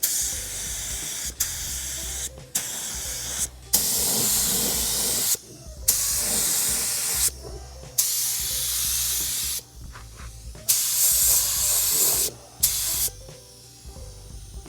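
Gravity-feed spray gun spraying primer with compressed air, a loud hiss in a series of short passes about one to two seconds each, the trigger released briefly between them.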